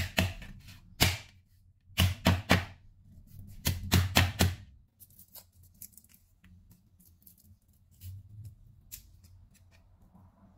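A cleaver strikes garlic cloves on a cutting board, about ten sharp knocks in clusters over the first half, crushing the cloves to loosen their skins. After that, fingers peel the papery garlic skins with faint crackles.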